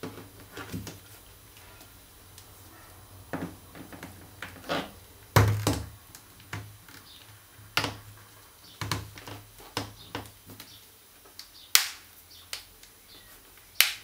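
Plastic clips of a Samsung Galaxy Tab 3 10.1's back cover snapping into place as the edges are pressed shut. A series of sharp clicks at irregular intervals, the loudest about five and a half seconds in and just before the end.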